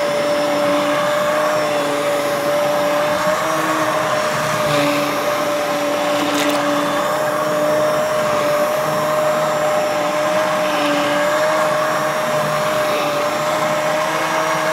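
Handheld immersion blender running at a steady pitch, submerged in a pot of soup and puréeing cooked beans and spinach into the broth.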